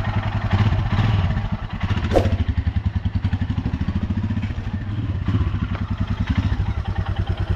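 Single-cylinder motorcycle engine running at low speed while riding off, with a rapid, even beat. A short high chirp sounds about two seconds in.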